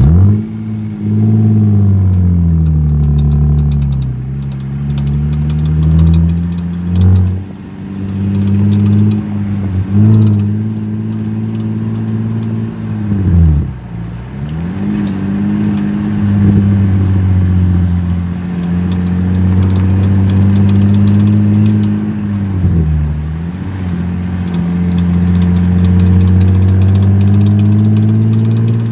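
Infiniti G35's 3.5-litre V6 running under way, its pitch dipping and rising again several times, with rapid light clicking from the rear axle area coming and going over it. The owner does not know the cause of the clicking.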